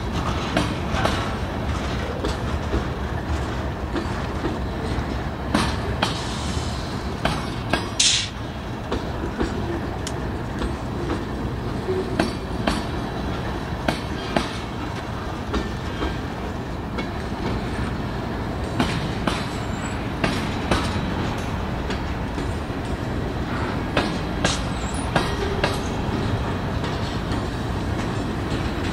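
BNSF freight train of boxcars and covered hoppers rolling slowly past: a steady rumble of wheels on rail with irregular clicks as the wheels cross rail joints, and one brief sharp sound about eight seconds in.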